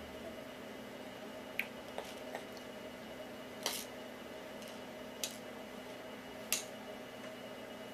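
Plastic baby toys clicking and clacking as they are handled, about six light knocks spread over several seconds, the sharpest about halfway through and near the end, over a steady faint hum.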